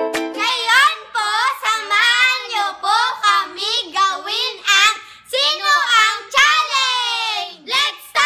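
Two children singing together loudly in high voices, in short phrases with sliding pitch and brief breaks between them.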